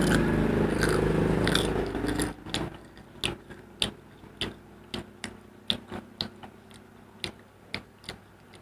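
Crunchy bites and chewing of fried chicken skin close to the microphone, about two sharp crunches a second. Under the first bites, a steady engine drone stops about two seconds in.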